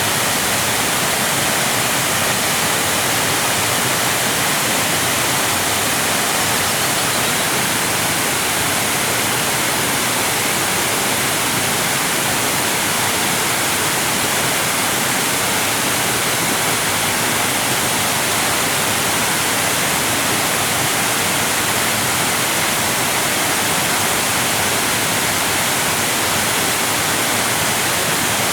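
Waterfall, a steady rush of falling water heard as an even, unchanging hiss.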